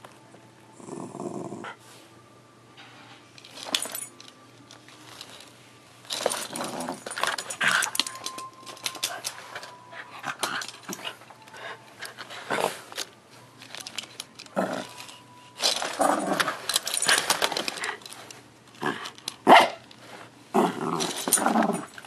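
Small dog, a Bichon frise, growling in play while pawing and mouthing a die-cast toy car on carpet. There are a few short bursts at first, then from about six seconds in a busy run of growls and sharp scratchy clicks.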